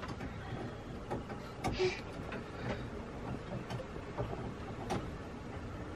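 Faint, scattered clicks and knocks of someone working head-down inside a sailboat's bilge through an open floor hatch, rummaging at something below the floorboards.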